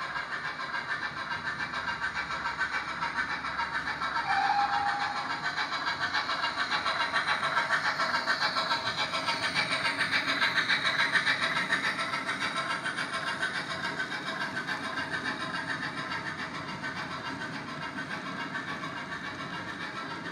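OO gauge model goods wagons rolling past on model railway track, their wheels clicking and rattling in a fast steady patter that grows loudest about halfway through as the wagons pass closest. A short steady tone sounds about four seconds in.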